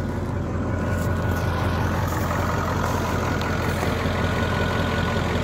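Ford 7.3-litre V8 diesel engine idling steadily.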